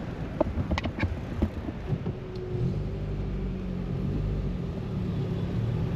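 A road vehicle's engine running with a steady low hum that sets in about two and a half seconds in, preceded by a few sharp clicks.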